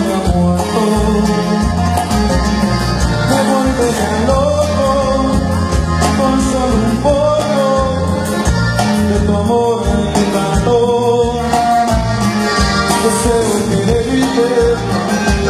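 Live band playing Latin music loudly: a man singing over acoustic guitar, bass and congas, with a steady beat.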